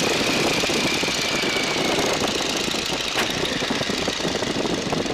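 Boeing Stearman biplane's radial engine and propeller heard from inside the open cockpit, mixed with rushing wind, as the plane pulls up out of a dive into a wing over. A high tone in the sound sags slightly and the level eases a little toward the end as the plane slows in the climb.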